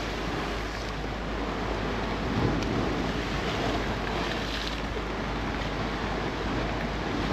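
Heavy rain and wind on the microphone: a steady rushing noise with small gusts.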